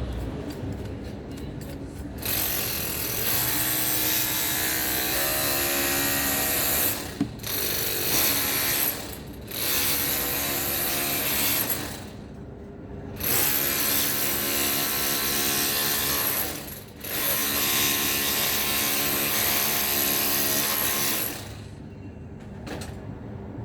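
Electric power tool running in five bursts of a few seconds each, with short pauses between them. The motor's whine steps up in pitch during the first burst.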